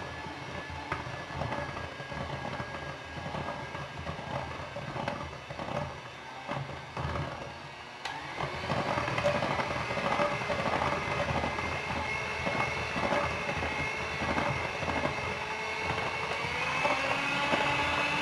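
Electric hand mixer running on its lowest speed, its beaters rattling against the bowl as flour is worked into cake batter. It grows louder about halfway through, and its pitch steps up near the end.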